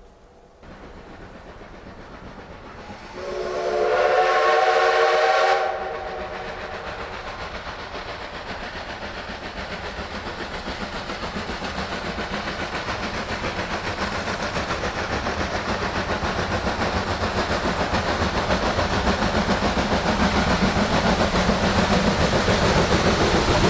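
Steam locomotive's chime whistle blowing once for about two and a half seconds, a few seconds in, followed by the train's running sound and exhaust growing steadily louder as it approaches.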